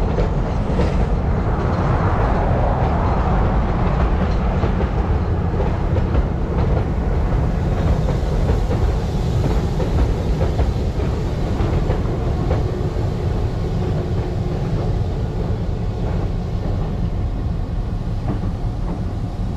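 Passenger train and its two diesel locomotives rolling over a steel highway bridge, wheels running over the rails. The locomotives pass about halfway through, and the sound eases slightly near the end as the train moves off.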